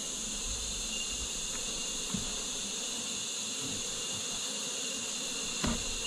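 Steady buzzing of honeybees from an open hive, with an even high-pitched insect hiss. A soft knock of a wooden frame comes about two seconds in and another near the end.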